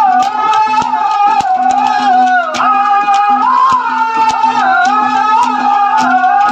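Ragni folk music playing without a voice: a high melody line that glides up and down over a low steady drone, with hand-drum strokes about twice a second.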